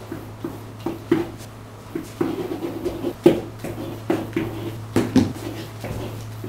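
Pen tapping and scratching on an interactive whiteboard's surface while words are handwritten: irregular short knocks a few times a second over a steady low hum.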